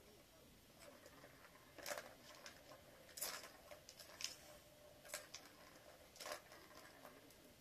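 Plastic Tower of Tracks cat toy clattering as a cat paws at the balls in its tiers: a handful of short plastic rattles and taps, roughly one a second.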